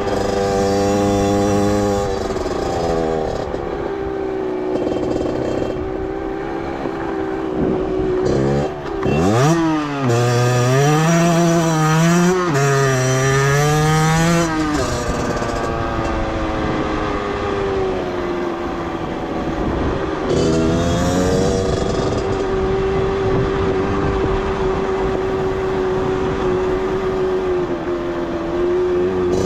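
Beta 50cc two-stroke motorcycle engine running at steady revs. A little past a quarter of the way in the revs climb sharply, then rise and fall repeatedly for about five seconds before settling back to a steady pitch.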